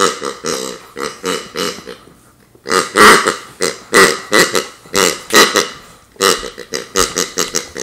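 Red rubber squeaky pig dog toy squeaking again and again as the dog chews and squeezes it, about two or three squeaks a second, with a short pause around two seconds in.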